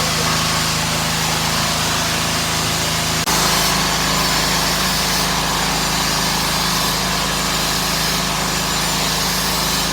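Portable generator running steadily, a loud constant engine drone whose tone changes abruptly about three seconds in.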